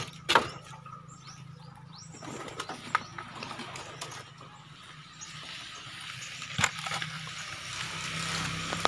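Pigeons stirring in a wooden cage, with a few sharp knocks, the loudest just after the start, over a low steady hum.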